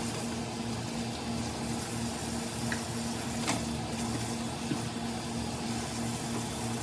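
Steady low hiss and hum of a pot cooking on the stove, with a single light clink about three and a half seconds in.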